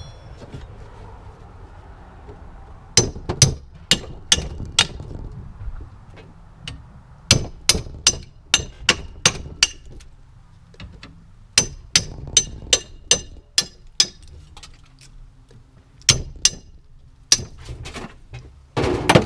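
A hammer striking a metal tool driven into a motor, in quick runs of about five to seven sharp, ringing metal blows with short pauses between, and one heavier blow near the end. It is the work of knocking the tool in to pry the copper windings out of the motor.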